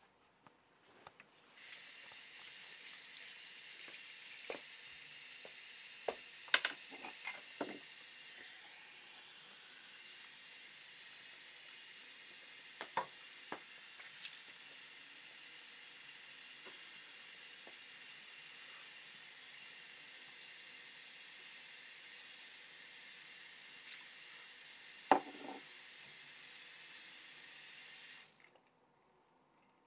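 Water running steadily from a tap, turned on about a second and a half in and shut off near the end, with a few sharp knocks and clicks over it, the loudest about 25 seconds in.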